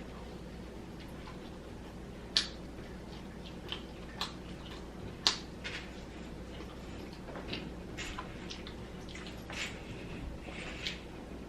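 Close-up mouth sounds of someone eating fried chicken wings: scattered wet smacks and clicks of chewing and lip-smacking, two of them louder about two and a half and five seconds in, over a faint steady hum.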